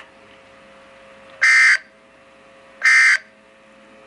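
EAS end-of-message data bursts on NOAA Weather Radio: two short, identical bursts of data tone, each about a third of a second long and starting about 1.4 seconds apart, marking the end of the alert message. A faint steady hum from the receiver lies between them.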